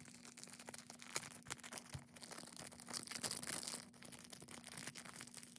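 Small plastic blind-bag wrappers crinkling and tearing as they are handled and opened, in many quiet, irregular crackles, over a faint steady hum.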